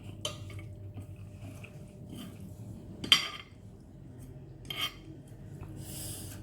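Eating utensils clinking against a bowl of instant noodles: three sharp clinks, the loudest about three seconds in, then a short burst of noise near the end.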